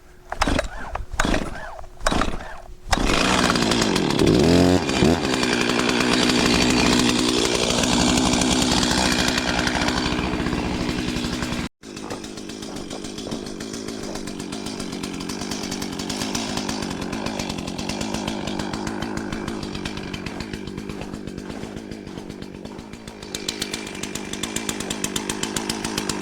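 Stihl 036 Pro two-stroke chainsaw being pull-started: a few short pulls of the starter cord, then the engine catches about three seconds in and runs fast. After a brief break near the middle it settles to a steadier, lower running to warm up.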